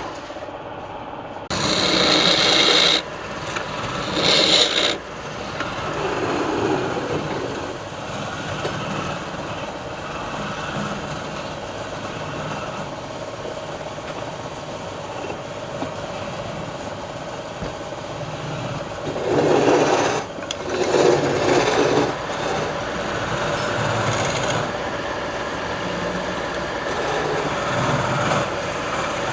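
Wood lathe running while a turning tool scrapes and cuts the spinning wood. The cutting is loudest and harshest in a few short passes near the start and again about two-thirds of the way through.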